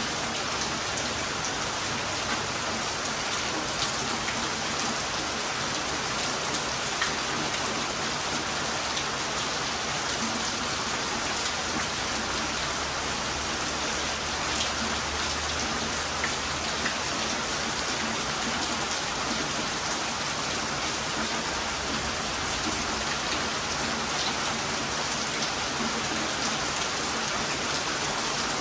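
Heavy rain falling steadily: a constant hiss of downpour with an occasional sharper drop tapping nearby.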